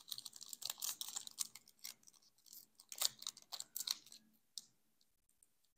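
Foil wrapper of a Pokémon Crown Zenith booster pack being torn open by hand: a dense run of crinkling and crackling that thins out about four and a half seconds in.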